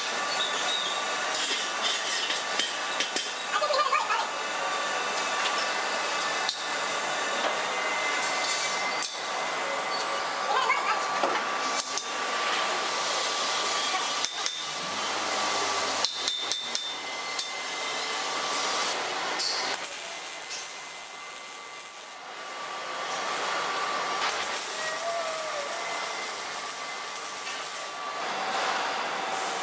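Steel pipe being fitted up and MIG welded: metal clinks and knocks on the pipe and pipe stands, with stretches of welding-arc crackle.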